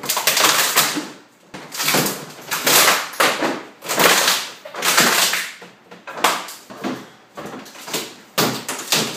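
Hammer striking a plywood shipping crate, about a dozen sharp knocks in irregular succession as its side panels are knocked loose.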